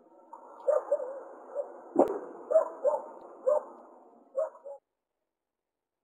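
A run of short, repeated animal calls, about nine in four seconds, with one sharp click about two seconds in. The calls cut off abruptly near the end.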